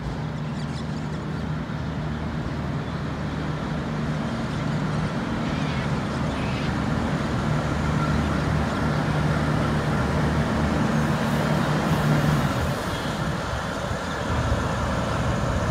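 V/Line VLocity diesel multiple unit drawing into the platform, its diesel engines giving a steady low hum that grows louder as the train comes closer over the first several seconds.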